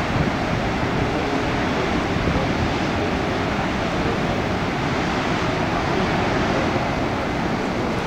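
Steady roar of heavy ocean surf, big waves breaking into white water.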